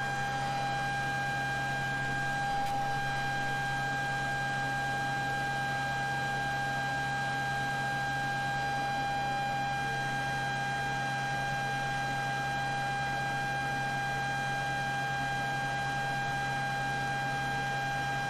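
JKM flow bench running steadily under test, pulling air through a cylinder head's intake port with the valve lifted 0.500 inch at about 28 inches of water of test pressure. It gives a constant high whine with several overtones over a low hum and a rush of air, unchanged throughout.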